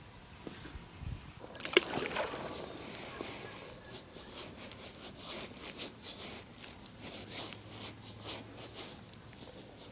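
Close handling noises: a sharp click about two seconds in, then a run of light rustles and clicks.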